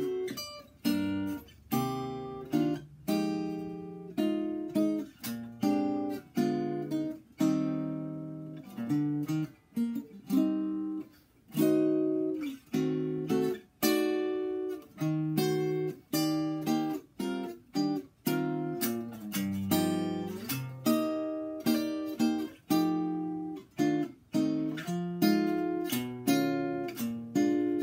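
1934 Epiphone Royal archtop guitar with bronze strings, played acoustically as solo chord-melody: chords struck one after another, each ringing out with rich overtones and fading before the next.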